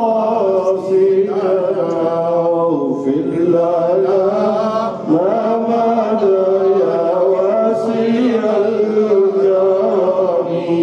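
A man chanting devotional verses into a microphone: one male voice holding long, drawn-out melodic notes that slide from pitch to pitch, without instruments.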